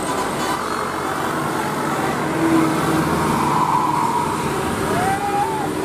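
Roadside traffic noise, with vehicles passing and their engines and tyres making a steady rumble. A brief rising call, like a voice or whistle, comes near the end.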